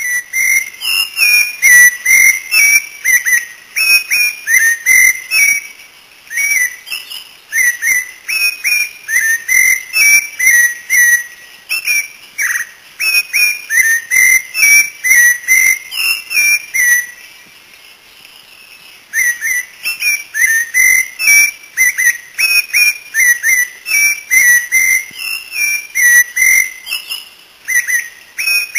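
Cocoa thrush (Turdus fumigatus) singing a loud, rapid run of short, slightly down-slurred whistled notes, about three a second, with a pause of about two seconds past the middle.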